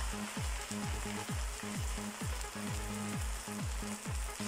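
Background music with a steady low kick-drum beat, about two and a half beats a second, each beat dropping in pitch, over an even hiss.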